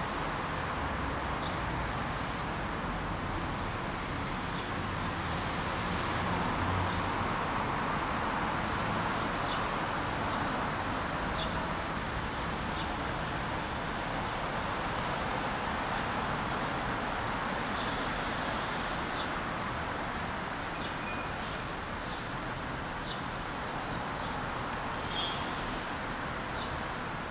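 Steady hum of road traffic, with faint short high chirps and ticks scattered through it.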